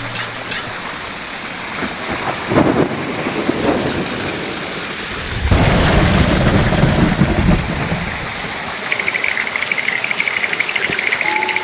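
Steady rain with a deep rumble of thunder about five seconds in. Near the end a fast, pulsing chirring sound starts, followed by a steady tone.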